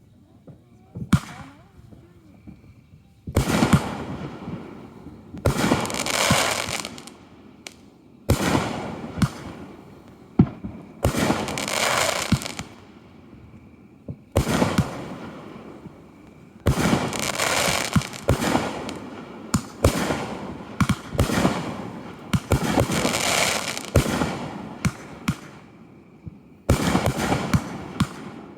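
Consumer fireworks going off in repeated volleys: sharp bangs, each followed by a crackling, hissing burst lasting a second or two, with brief lulls between them.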